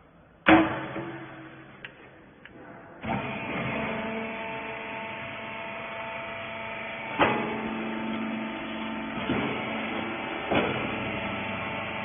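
A loud metal clank about half a second in; about two and a half seconds later a hydraulic rag baler's motor and pump start and run steadily with a hum of several held tones, with a few clunks from the press as it works.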